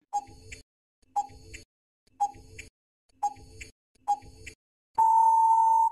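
Countdown timer sound effect: five ticks about a second apart, each with a short ping, then a steady beep lasting about a second that marks time up.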